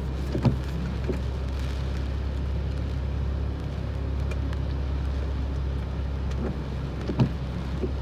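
Steady low hum inside a stopped car's cabin, with typhoon rain and wind against the car. Two short knocks come about half a second in and near the end.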